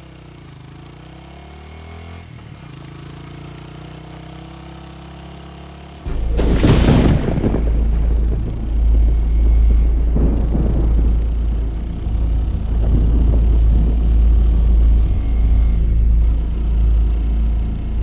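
Film soundtrack: a dark, low music drone with slowly falling tones, then about six seconds in a sudden boom hit leads into a loud, deep rumble that swells and dips, with a vehicle-engine character.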